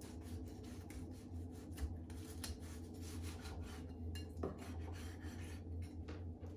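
Cleaver blade sawing through pork spare ribs along the bone on a wooden cutting board: faint, repeated scraping strokes, over a low steady hum.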